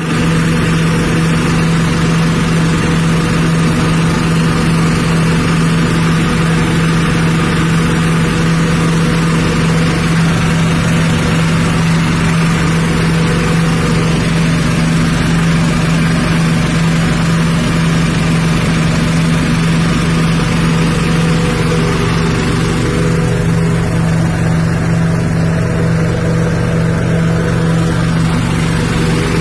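A rice-husk grinding machine driven by a 6.5 hp petrol engine, running steadily with a constant low hum and a dense mechanical whirr.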